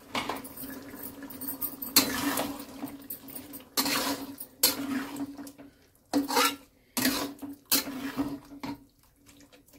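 Yogurt water poured into a pan of chicken curry and stirred in with a metal spoon: a series of short scrapes and clinks of the spoon against the pan.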